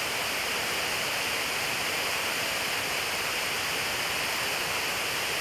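A rocky river rushing over boulders, a steady unbroken hiss of running water.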